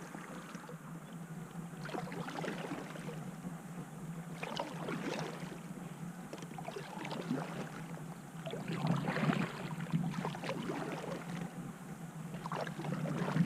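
Water sounds from kayak paddling: irregular splashes and drips of a paddle in the river, swelling louder a few times.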